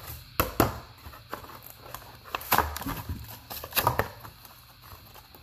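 A plastic blister pack of Pokémon trading cards being handled, its clear plastic bubble crackling and giving a few sharp clicks as it is gripped and turned over.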